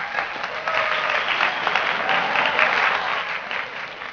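A crowd applauding, a dense patter of many hands clapping that eases off toward the end.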